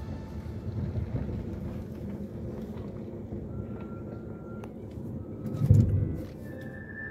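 Low, steady rumble of a car driving slowly, heard from inside the cabin, with a louder low thump a little before the end.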